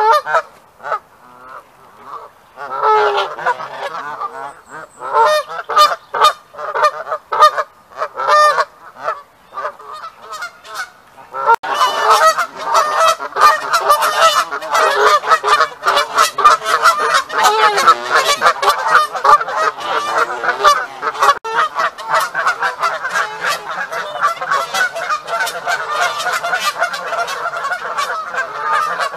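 Geese honking: scattered honks at first, then from about twelve seconds in a dense, continuous chorus of many birds honking over one another.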